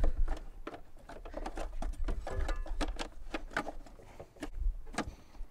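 Irregular plastic clicks and knocks of a car's air intake duct and air box being worked back into place by hand, with a short squeak about halfway through.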